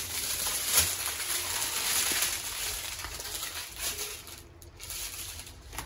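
Small plastic bags of diamond painting drills rustling and crinkling as they are handled and sorted, with a single click about a second in. It quietens after about four seconds.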